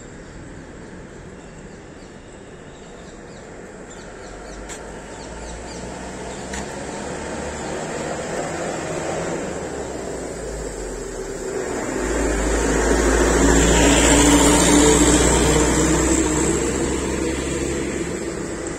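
Vehicle passing on a wet road: engine rumble and tyre hiss on the wet asphalt build over several seconds, are loudest about two-thirds of the way through, then fade as the next vehicle approaches.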